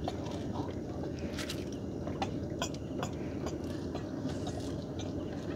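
Gill net being hauled in by hand over a boat, giving scattered small clicks and crackles over a steady low rumble.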